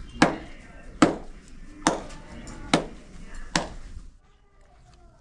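Wheat roti dough slapped between bare palms to flatten it by hand for tandoor bread: five sharp slaps at an even pace a little under one a second, stopping about four seconds in.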